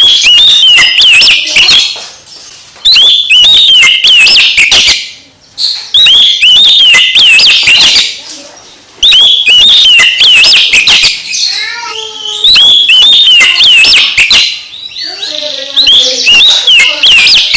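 Oriental magpie-robin (kacer) singing loudly: rapid, sweeping whistled notes in phrases of two to three seconds, separated by short pauses.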